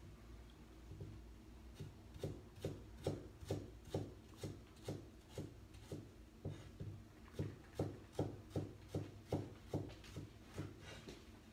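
A kitchen knife slicing fresh ginger on a thick round chopping block: steady knocks of the blade on the board, about two or three a second, starting about two seconds in.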